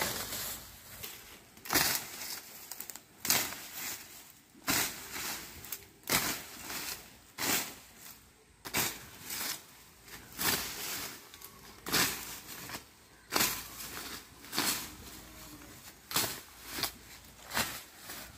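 A long-handled billhook, its blade fixed to a pipe handle, slashing through weeds and brush. It cuts in repeated strokes about every second and a half, each a short swish and cut through stems, with rustling of the vegetation between strokes.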